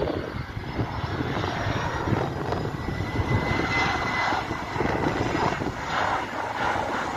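Engines of a Boeing 737-400 freighter passing low overhead on landing approach, gear down: a steady jet roar with a thin high whine that rises slightly in pitch midway.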